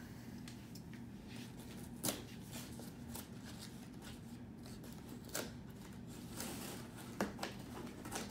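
Scissors and hands working at a taped cardboard shipping box: faint scattered scrapes and rustles with a few sharper clicks, the clearest about two seconds in, at about five seconds and near the end.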